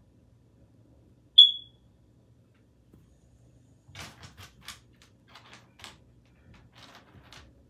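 A single short, loud, high-pitched electronic beep about a second and a half in. From about four seconds in comes a run of quick light clicks and scratches from a black kitten playing on the hardwood floor.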